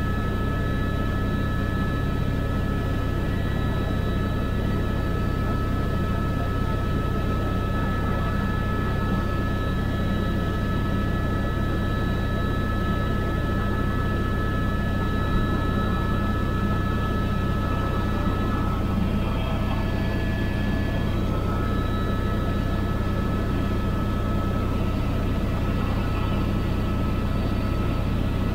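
Cabin noise of a small aircraft in flight: a steady engine drone with constant high whining tones over it.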